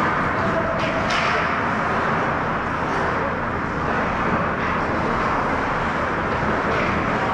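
Steady ice-rink din during a hockey game, with a few brief higher scrapes.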